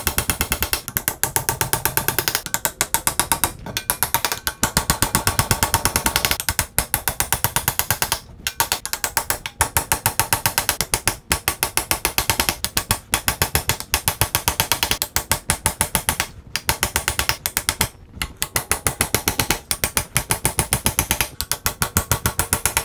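Rapid, steady ratchet-like clicking from a wheelwright's wheel stand as the wagon hub is turned by hand while spokes are loaded into it, stopping briefly several times.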